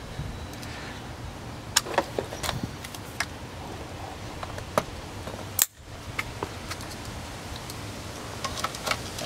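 Scattered light clicks and metallic taps as a replica Insight WMX200 weapon light is handled and its hinged rail mount is fitted onto a rifle's rail, with one louder click about halfway, over a steady low background hiss.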